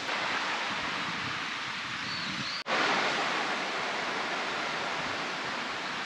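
Steady outdoor rushing noise, broken by an abrupt cut about two and a half seconds in, then continuing unchanged.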